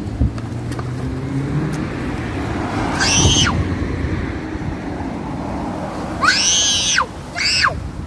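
Wind buffeting the microphone, broken by three short, high, arching cries: one about three seconds in and two close together near the end.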